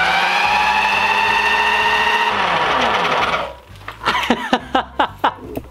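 Corded electric drill, its chuck coupled to a scooter wheel, running at full speed with a steady whine. The whine holds for about two seconds, then winds down and stops as the trigger is released, the drill and wheel coasting to a halt. A run of short sharp sounds follows near the end.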